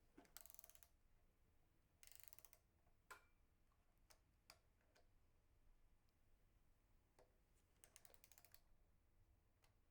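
Faint ratcheting of a torque wrench with a 4 mm hex bit tightening the M4 clamp screws of a bike brake master cylinder to 4 Nm: three short runs of rapid clicks, with a few single clicks between.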